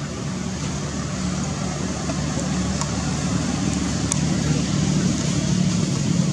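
A steady low mechanical-sounding hum under a hiss, growing slightly louder, with a few faint ticks.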